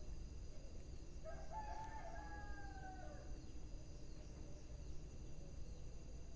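A rooster crowing once in the distance, one call of about two seconds that drops in pitch at the end, over a steady low rumble and faint high insect chirring.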